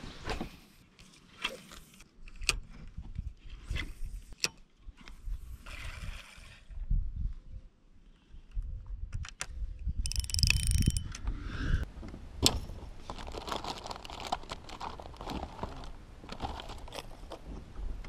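Scattered small clicks, knocks and scrapes of fishing gear being handled aboard a kayak, with a louder rustling stretch about halfway through and busier clattering after it.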